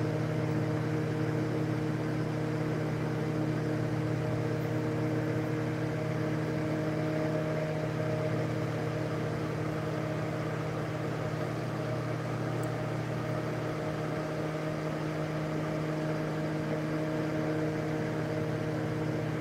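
Steady machine hum with several constant low tones over a light whir, unchanging throughout, like an electric fan or motor running.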